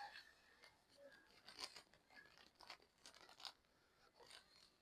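Faint crinkling and clicking of a plastic bag being pressed flat by hand to push the air out and close it, done in place of a vacuum sealer.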